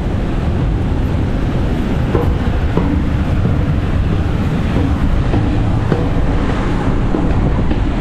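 Wind buffeting the microphone as a steady low rumble, with faint irregular knocks of footsteps on steel ship's stairs.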